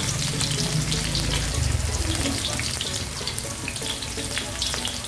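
Garlic and onion frying in hot oil in a pan: a steady sizzle with many small crackling pops.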